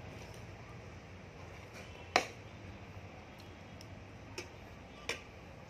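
A few sharp clinks of a metal utensil against a plate during a meal. The loudest comes about two seconds in, and two smaller ones come near the end, over faint room noise.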